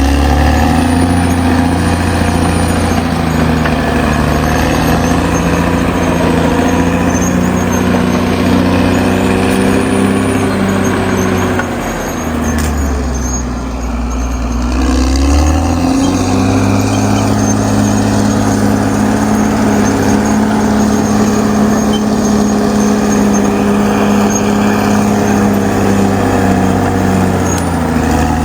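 Caterpillar D6R XL bulldozer's diesel engine running hard, with a faint high whine over it. The engine speed sags for a few seconds about halfway through, then picks back up.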